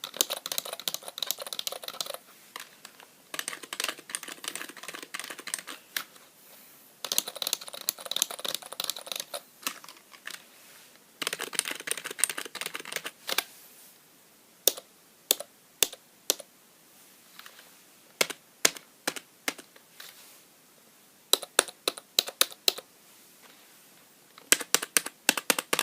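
Typing on Dell rubber-dome keyboards, a chiclet multimedia keyboard and an older Dell with slider keys. Several fast runs of keystrokes come first, then slower single key presses and short clusters. The chiclet keyboard's sound is called awful next to the one with sliders.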